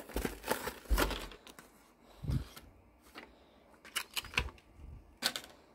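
Plastic blister packaging and cardboard backing of a die-cast toy truck being torn open by hand: a run of sharp crackles and snaps in the first second, then scattered clicks and rustles, with a dull thump about two seconds in.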